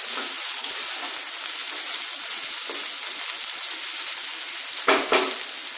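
Diced potatoes frying in mustard oil in a nonstick pan, a steady sizzle as they brown. A couple of short scrapes of a wooden spatula come near the end.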